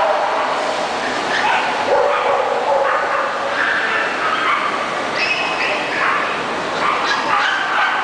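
Several dogs barking and yipping at once, the calls overlapping at different pitches without a break, with people talking underneath.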